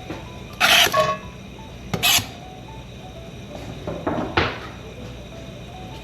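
Kitchen clatter: three sharp knocks and scrapes of utensils and cookware against a pan, the loudest about a second in, another around two seconds in and a third past four seconds, over quiet background music.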